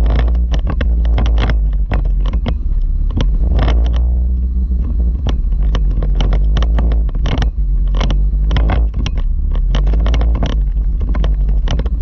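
A vehicle jolting slowly down a steep, rutted dirt track full of holes and loose rock: a steady low rumble with frequent, irregular sharp knocks and rattles as the wheels drop into holes and over stones.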